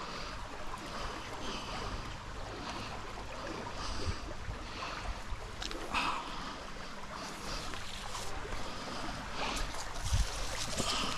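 Stream water running steadily, with wind rumbling on the microphone. Rustling and a couple of short knocks come from a rope being handled and tied round a tree trunk.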